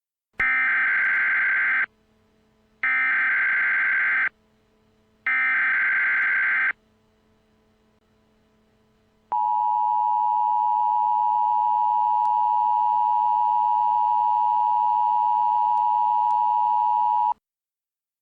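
Emergency Alert System SAME header: three identical bursts of buzzing digital data tones, about a second apart, which mark the start of an emergency alert. After a short pause comes the steady EAS attention tone, which lasts about eight seconds and cuts off sharply.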